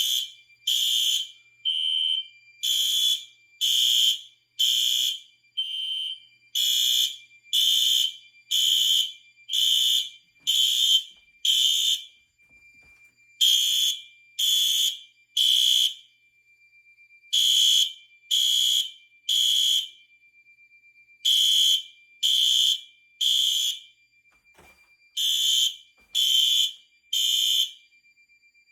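Fire alarm horns sounding in alarm, set off by a smoke detector tripped with canned test smoke. At first the blasts come about once a second without a break; about halfway through they settle into groups of three with a pause between, the temporal-3 evacuation pattern. A steady high tone runs underneath.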